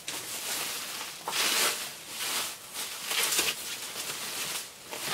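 Clear plastic wrapping and bubble wrap crinkling and rustling as hands unwrap a package, louder and softer by turns.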